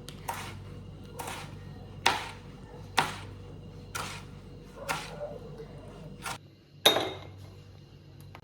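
Kitchen knife chopping tomatoes on a cutting board, one sharp cut about every second, the loudest near the end.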